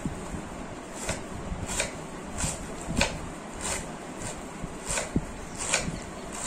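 Small kitchen knife slicing a head of green cabbage thinly on a wooden chopping board, short even cuts about every two-thirds of a second.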